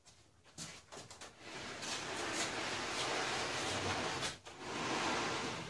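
Large wooden floor panel being handled: a few knocks, then two long stretches of scraping as the panel is dragged and slid across its supports.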